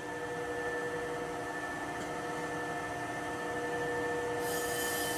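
Chevalier FSG-1228AD hydraulic surface grinder running, a steady hum with several fixed tones. A higher hiss joins about four seconds in.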